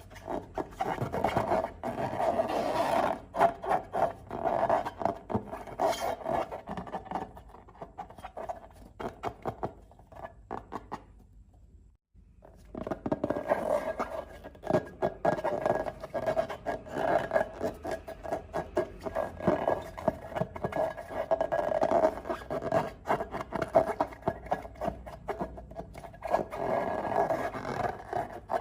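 Slime being worked by hand: a dense run of sticky crackling and scraping. It stops briefly about halfway through, then starts again.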